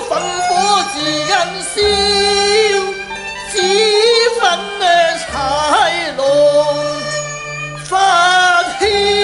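Cantonese opera (yueju) duet music: a Chinese instrumental ensemble playing a wavering melody with vibrato over low held bass notes.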